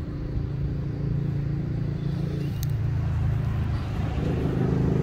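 A car engine running as a vehicle drives over a railway level crossing, getting louder toward the end. A single sharp click about two and a half seconds in.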